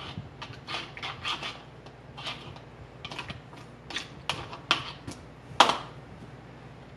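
Green plastic canning funnel knocking and scraping on the mouths of glass mason jars as the jars are filled with broth: a string of light, irregular taps and clicks, the loudest about five and a half seconds in.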